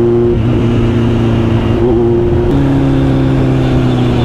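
Kawasaki Z900's inline-four engine running while riding, its pitch stepping down about two and a half seconds in as the revs drop, over steady road and wind noise.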